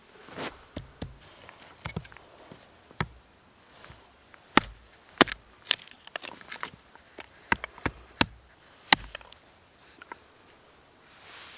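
Wood being chopped for a campfire: a series of sharp, irregular knocks and cracks, some strikes coming in quick clusters.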